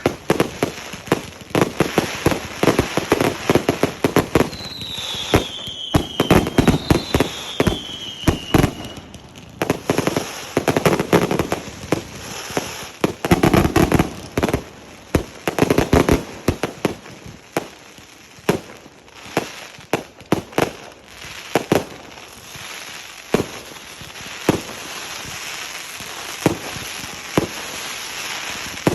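Fireworks going off: a rapid run of sharp bangs and crackles that thins to scattered reports later on. Two falling whistles sound about five and seven seconds in.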